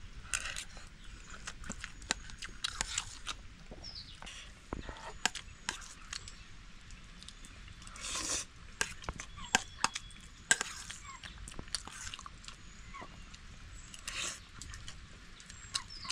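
Someone eating a meal: chewing and crunching with many scattered small clicks, and a few short, louder rustles.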